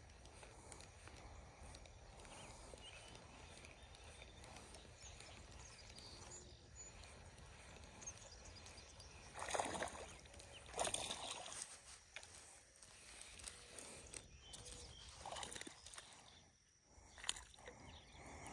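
Quiet outdoor ambience: a faint, steady background hiss. Two short noises come about a second apart around the middle, with a few fainter ones later.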